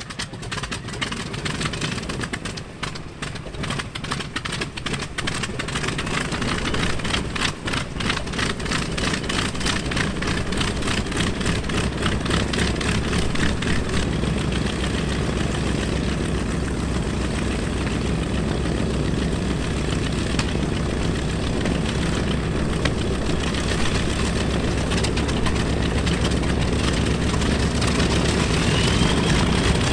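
The twin Wright R-2600 radial engines of a North American B-25 Mitchell idling just after a cold start. They run rough and uneven for the first dozen seconds, growing louder, then settle into a steady low drone.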